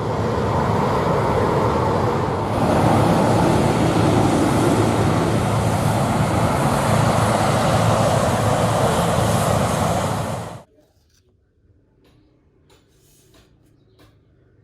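A vehicle sound effect: a loud, steady, rumbling noise that grows louder about two and a half seconds in, then cuts off suddenly about ten and a half seconds in. Faint clicks follow.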